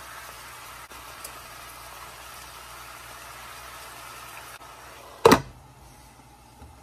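Sliced peppers and red onion sizzling steadily in oil in a stainless steel skillet. About five seconds in, one sharp clank as a glass lid is set on the pan, and the sizzle is quieter after it.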